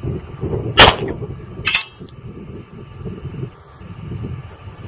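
Glock 22 Gen 2 pistol in .40 S&W firing: one sharp shot about a second in, then a second, quieter crack just under a second later.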